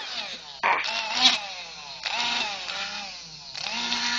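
Small brushed DC drill motor on a 24 V supply, its brushes sparking heavily: it runs up sharply about three times and its whine falls in pitch as it slows between the bursts.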